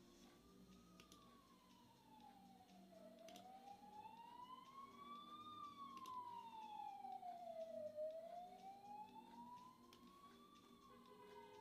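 Faint emergency-vehicle siren in a slow wail, its pitch gliding up and down about once every five seconds.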